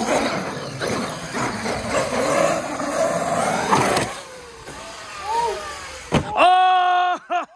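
Traxxas X-Maxx RC monster truck running flat out, its brushless electric motor whining under a rushing noise of big tyres on concrete, which falls away about six seconds in. Near the end comes a loud, drawn-out shout.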